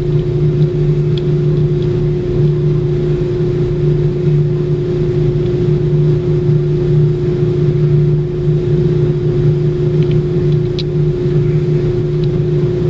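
Steady mechanical hum holding one constant pitch, with a few faint ticks.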